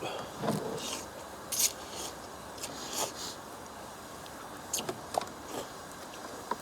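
Someone eating a bowl of hot broth with beef and enoki mushrooms: a few short slurps and chewing noises, with several light clicks of a utensil on the bowl.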